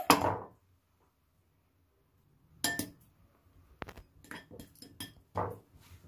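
A metal mesh strainer tapped against a mixing bowl to sift flour through it: one sharp clink about two and a half seconds in, then a scattered run of lighter clicks and knocks.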